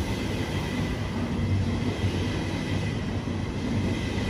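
ÖBB Railjet push-pull train running through without stopping, its coaches making a steady rolling rumble on the rails with a low hum and a faint high tone.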